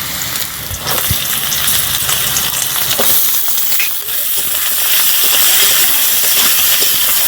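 Chopped potatoes and fried onions sizzling in hot mustard oil in a kadai. The hiss grows louder about a second in and again about four seconds in, with a few short clicks.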